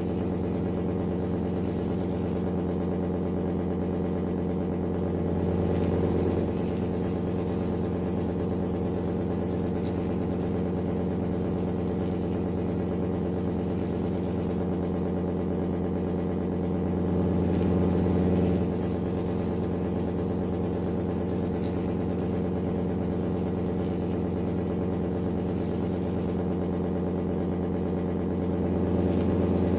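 A steady engine drone that swells slightly and evenly about every twelve seconds, like a recording that repeats.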